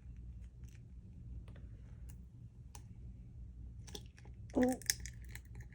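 Faint scattered clicks and small crunches of a large chicken eggshell being cracked and picked apart, growing busier about four seconds in, with a brief short vocal sound near the end.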